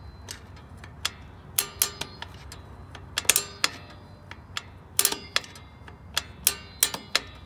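Irregular metallic clicks, some in quick runs of two or three, from a screwdriver turning the star-wheel adjuster of a Nissan D21 rear drum brake. The adjuster is being wound out to spread the new brake shoes wider.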